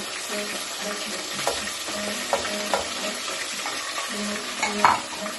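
Mixed vegetables sizzling in hot oil in a pan while being stirred, with a few sharp clicks of the utensil against the pan, the loudest near the end.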